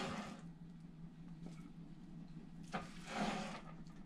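A spatula scooping cooked biryani rice out of a nonstick frying pan: soft scraping and rustling, loudest in one short scoop about three seconds in, over a steady low hum.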